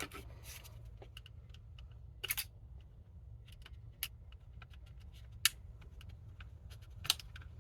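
Small plastic clicks and scrapes as a screwdriver pries at the snap-in clamping points holding the plastic top cover on a BMW E92 master window switch, with a few sharper clicks spread through. A steady low hum runs underneath.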